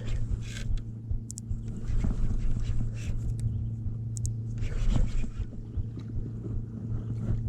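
Water and wind noise around a fishing kayak being towed by a hooked muskie: a steady low rumble with a few brief splashes, the loudest about five seconds in.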